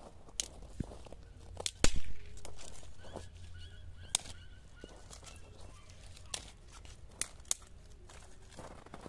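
Scattered sharp clicks and crunches outdoors on snow, the loudest a knock about two seconds in, with a faint drawn-out animal call in the middle.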